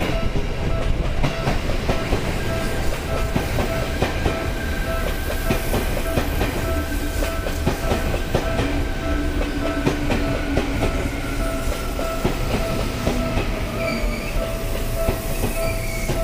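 Seibu 2000 series electric train pulling into the station and slowing as it passes close by, its wheels clicking steadily over rail joints and points, with a steady tone and a faint whine that falls slowly in pitch. A high squeal from the wheels begins near the end as it brakes.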